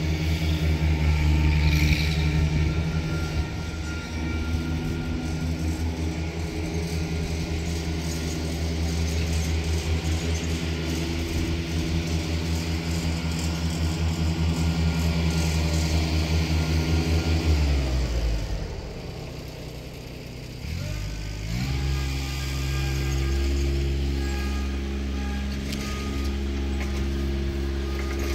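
An engine running steadily with a low, even pulse. About two-thirds of the way through, its pitch slides down and it drops away, then it climbs back up a few seconds later and runs on.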